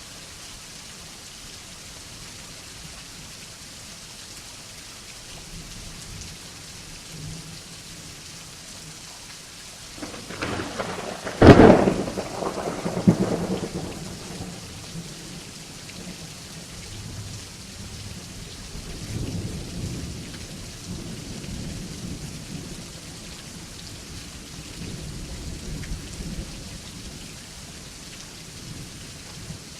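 Steady rain falling, with a sharp thunderclap about eleven seconds in that rolls on into rumbling for a few seconds. Fainter low thunder rumbles twice later on.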